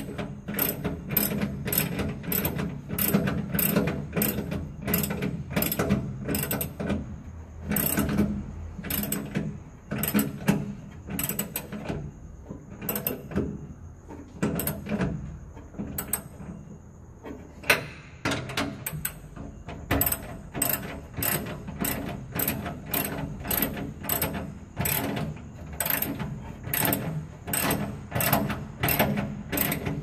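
Ratchet wrench clicking in steady runs as it is swung back and forth to tighten a bolt, about two to three clicks a second, with a sparser stretch midway.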